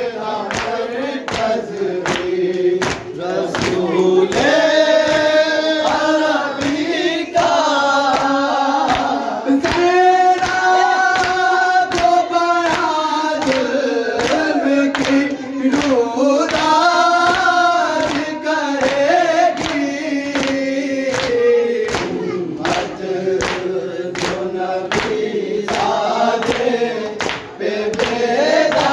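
Young men's voices reciting a noha in unison, a slow sung lament with long held notes, over rhythmic chest-beating (matam) slaps about twice a second that keep the beat.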